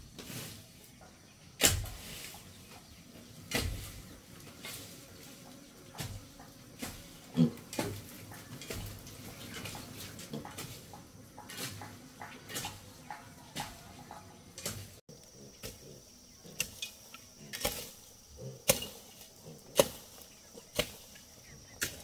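Repeated sharp knocks of a hand tool striking, spaced irregularly at first and settling to about one a second in the second half.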